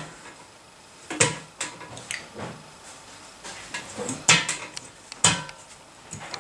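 Irregular knocks and clinks of small hands tapping and slapping a glass tabletop in a metal frame: about a dozen separate strikes, the sharpest about a second in and again a little past four seconds.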